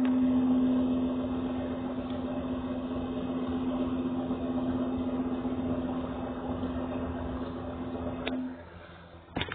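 Electric space heater's fan running with a steady hum and rush of air, blowing onto the fireplace logs to stoke the fire; it cuts off about eight and a half seconds in, followed by a few sharp clicks.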